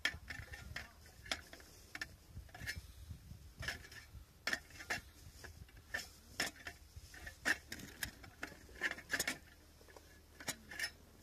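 Chopsticks clinking and tapping against camp cookware: a series of light, irregular clicks spread across several seconds.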